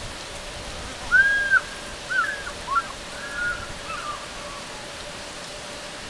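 African fish eagle calling in the distance: one longer arching note about a second in, then a run of shorter yelping notes that trail off about four seconds in.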